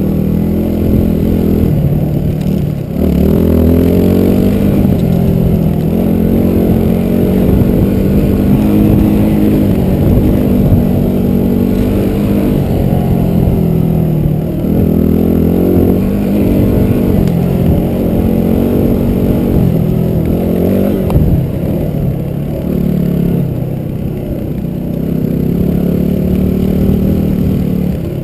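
A motor vehicle's engine running under changing throttle, its pitch rising and falling again and again as it revs up and eases off.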